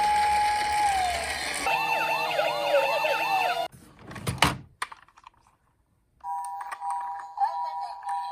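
Electronic sirens of toy ambulances and police cars: a held tone that drops in pitch about a second in, then several sirens wailing up and down over one another until they cut off suddenly. A brief swoosh follows, and music starts near the end.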